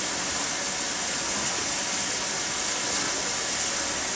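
Steady hiss of escaping steam from the SNCF 241P17 steam locomotive, standing in steam as its boiler is brought up to pressure.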